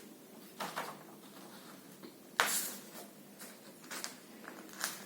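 A handful of short, faint clicks and rustles, about six in all, the loudest about two and a half seconds in, over quiet room tone.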